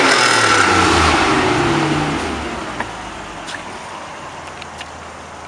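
Car engine easing off from revs, its pitch falling and the sound fading over the first two or three seconds, then a low steady hum.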